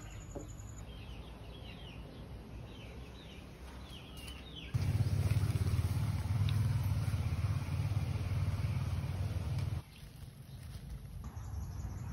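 Short bird chirps over a quiet outdoor background. About five seconds in, a loud, low rumble starts abruptly, runs steadily for about five seconds and cuts off just as suddenly.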